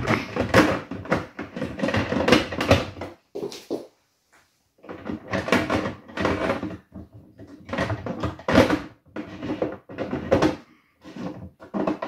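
Knocks, clicks and rattles of a Bosch dishwasher's wire racks and plastic parts being handled. Busy for the first few seconds, quiet for a moment, then more clattering through most of the rest.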